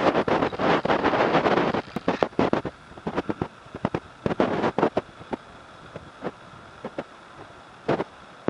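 A gray horse's hooves thudding on the dirt of a paddock as it trots, the beats irregular and thinning out as it slows, with only a couple of steps near the end. A loud rush of noise covers about the first two seconds.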